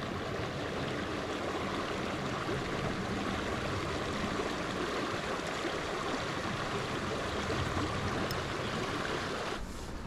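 Rushing water of a small river, a steady even rush that drops off sharply near the end.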